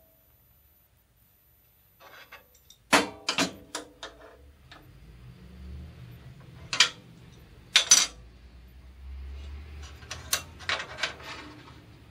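Metal tools clinking and knocking on a band saw's steel table: a few separate sharp metallic clinks and taps, then a quick run of them near the end, with soft handling noise between.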